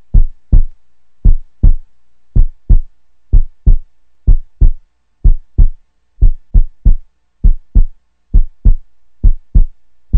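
A heartbeat sound effect: pairs of low, heavy thumps repeating about once a second, steady and unchanging.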